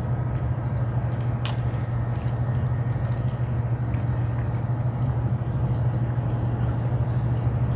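Steady low background rumble, with one sharp click about a second and a half in.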